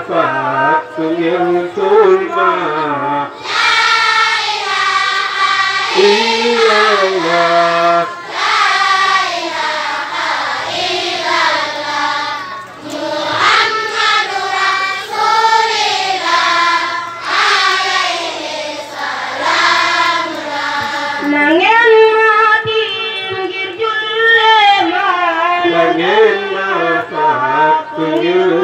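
Amplified singing through microphones: a lower voice and higher children's voices take turns in a melodic religious chant, the higher singing fuller and louder, with a new phrase sliding up in pitch near the two-thirds mark.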